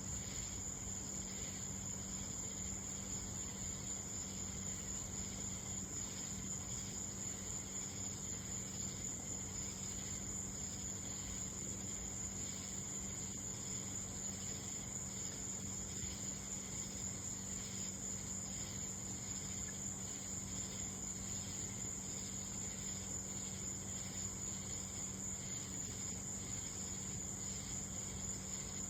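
A steady, high-pitched chorus of night insects such as crickets, trilling without a break. A faint steady low hum runs underneath, and no thunder is heard.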